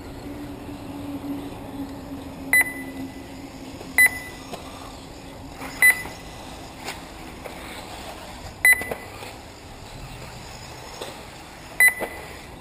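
Electronic beeps from a race lap-counting system, five short, sharp beeps at irregular intervals as cars cross the timing line, over a faint low hum.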